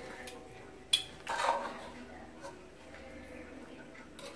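A metal ladle strikes a pressure cooker once, sharply, about a second in, followed by a short scraping rustle as cooked rice is stirred in the pot.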